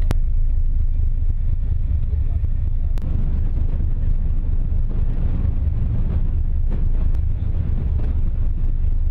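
Steady, loud low rumble of wind and vessel noise at sea, with three short clicks where the shots change.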